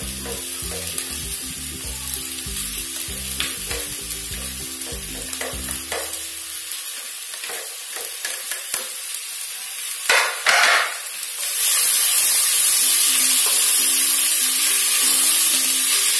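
Sliced onions sizzling as they are spooned into hot coconut oil in a stainless steel pressure cooker. A sharp burst of sizzling comes about ten seconds in, and the frying stays louder after it.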